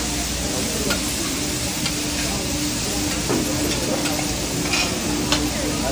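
Meat sizzling and frying on a hot flat-top griddle, with a metal spatula scraping and clicking against the steel several times.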